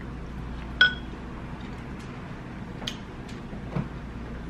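A metal fork clinks once against a glass bowl about a second in, with a short ring, followed by quiet chewing with a few small mouth clicks.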